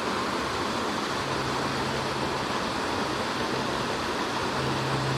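Steady rushing of a small mountain creek and waterfall, an even wash of water noise. A low steady hum joins about a second in and grows stronger near the end.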